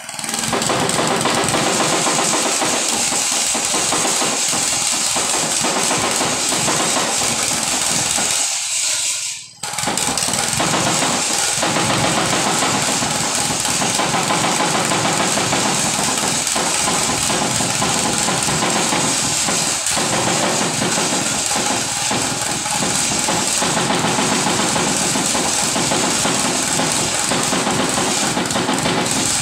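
Engine of a hand-guided Mikasa piling machine running steadily under load, cutting out briefly about nine seconds in and then running on.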